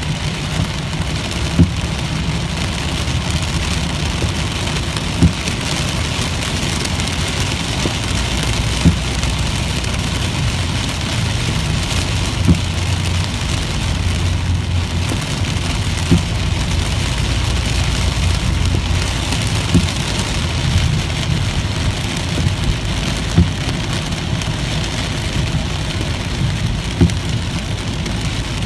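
Rain pattering on the windshield and roof of a moving car, heard from inside the cabin over a steady low road and engine rumble. The intermittent windshield wipers give a short knock at each sweep, about every three and a half seconds, eight times.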